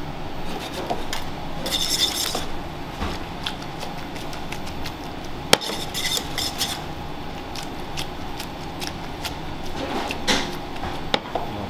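Metal tongs clinking and scraping against a stainless steel sauté pan while pici pasta is stirred with pecorino and pasta water to make the cheese sauce. Short scraping spells come about two and six seconds in, and a single sharp clink a little past five seconds is the loudest.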